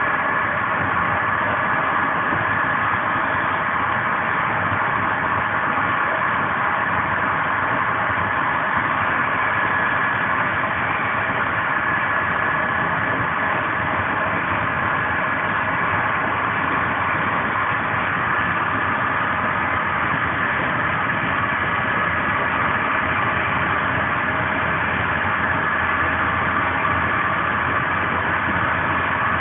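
Steady rolling and wind noise inside a Corail passenger coach running at speed, with no rhythm of rail-joint clicks and a few faint steady tones in the noise.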